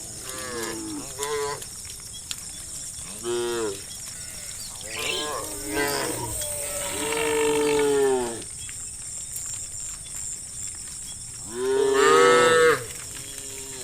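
Cows in a herd mooing repeatedly, about seven calls of varying length: mostly short ones, a longer drawn-out moo around the middle, and the loudest call near the end.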